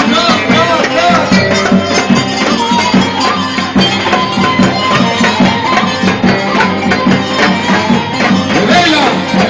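Middle Eastern folk music: a wavering melody line over a fast, steady percussion beat.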